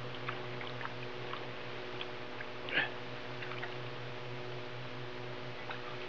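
Steady low electrical hum on the old recording, with a few faint clicks and one short scrape or rustle about three seconds in.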